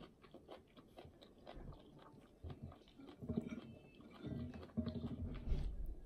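Close mouth sounds of a person eating by hand: chewing and lip-smacking on sweet potato shoots. There are scattered small clicks, and the chewing grows louder and denser over the last three seconds or so.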